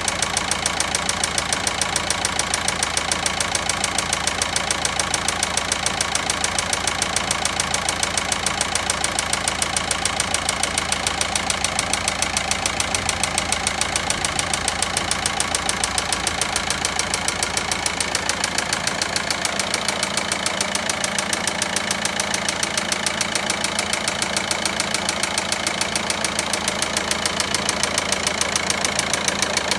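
Volkswagen Passat 1.9 diesel engine idling with a rapid, even knocking clatter: the abnormal engine noise being diagnosed.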